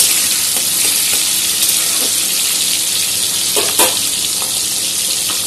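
Tomato, capsicum and green chilli pieces sizzling steadily in hot oil in an aluminium kadai. A spatula knocks or scrapes against the pan a couple of times a little past the middle.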